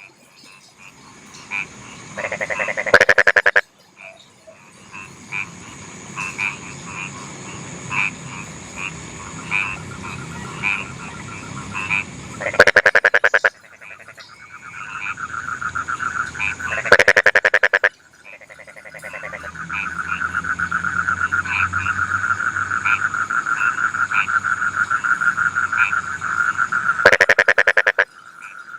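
Rice-field frogs calling in chorus. Four loud, rapid pulsed croaks about a second long stand out, with shorter scattered calls between them and a long fast trill through the second half.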